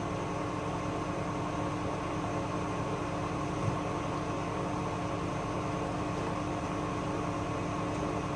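Hoover DXOA610AHFN-80 washing machine running near the end of its Rapid 14' programme: a steady motor hum with a constant whine over a low rumble. A single light tick comes a little after three seconds in.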